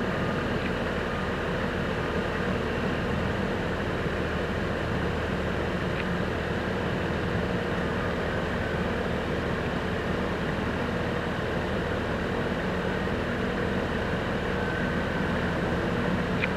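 Steady din of construction-site machinery engines and street traffic, a low engine hum under a wash of noise, with a few faint clicks.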